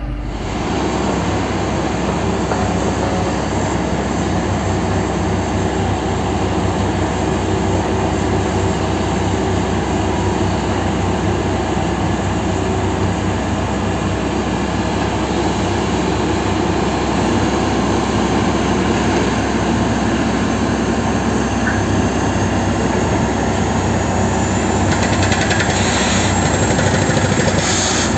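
Heavy diesel engines of a large mining excavator and haul truck running, a steady, dense mechanical drone that grows a little louder near the end.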